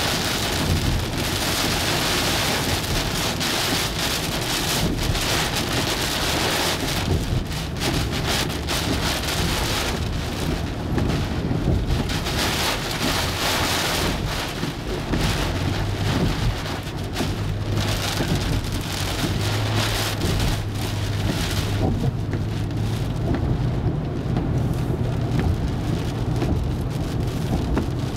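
Heavy rain pelting the windshield and body of a moving car, heard from inside the cabin, over a steady low rumble of road and engine.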